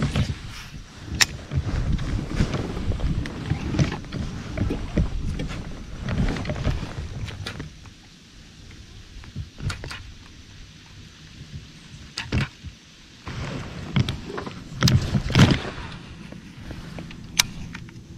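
Fishing from a plastic kayak: a baitcasting rod and reel being cast and reeled in, with scattered sharp clicks and knocks of the gear against the hull over a low rumble. The rumble is quieter for a few seconds in the middle, and a cluster of knocks comes near the end.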